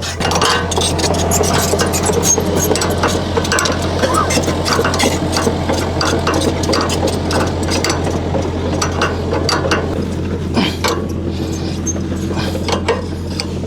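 Mini excavator engine running with a steady drone, the hydraulic pump working while pilot pressure builds for a gauge test at about 4 MPa. It gets louder right at the start, with a dense clatter of clicks and knocks over the drone.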